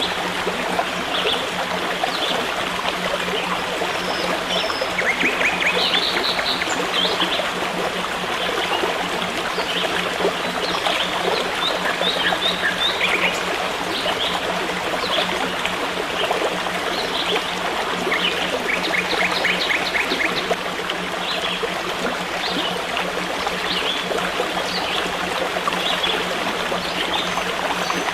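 A forest stream running steadily, with small birds chirping over it, including two quick trills of rapid repeated notes.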